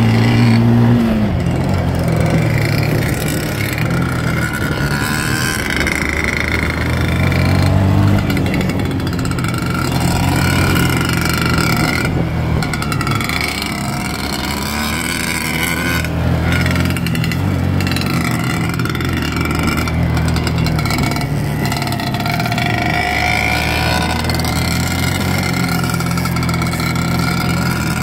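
Two-stroke Yamaha YZ dirt bike engines running hard, revving up and falling off again and again through the gears.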